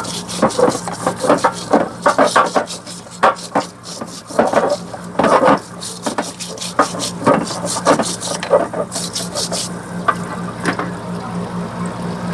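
A Corvair rear-end part being scrubbed and washed clean: quick, irregular scrubbing strokes with some liquid sound, easing off about ten seconds in, over a steady low hum.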